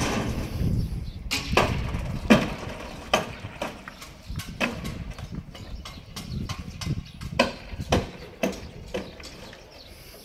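Irregular sharp wooden knocks and bangs, about one or two a second, from timber formwork being hammered loose from a concrete slab, over a low rumble.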